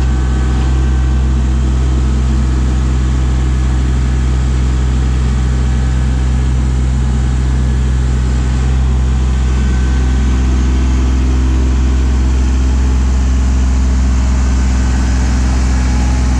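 Kubota LX2610 compact tractor's three-cylinder diesel engine running at a steady speed, a loud even drone with a slight change in its tone about ten seconds in.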